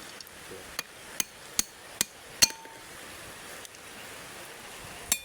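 A hammer striking metal: five sharp blows at about two and a half a second, the last the loudest and ringing briefly, then one more blow near the end.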